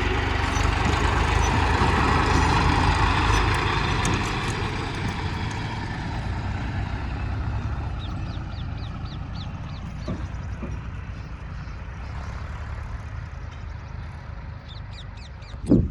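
Heavy diesel machinery engine running with a low rumble, loudest in the first few seconds and then easing off. A short loud knock comes near the end.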